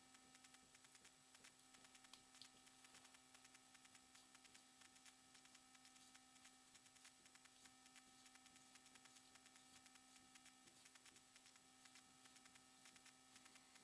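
Near silence: a steady faint electrical hum with a few very faint ticks.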